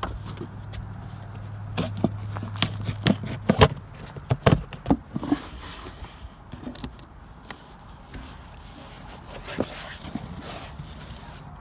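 Knocks and footsteps on a wooden porch deck, then a knife slicing through packing tape on a cardboard box and the cardboard flaps being pulled open. A low steady hum stops about three and a half seconds in.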